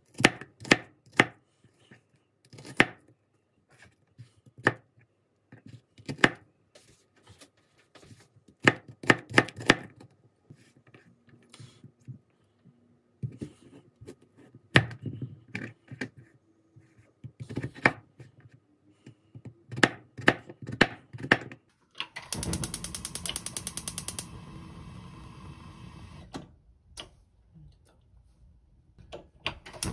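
Chef's knife slicing onion and potato on a cutting board: sharp knocks of the blade on the board in irregular runs. About 22 seconds in, a gas stove's igniter clicks rapidly for about two seconds, followed by a steady hiss, and the clicking starts again near the end.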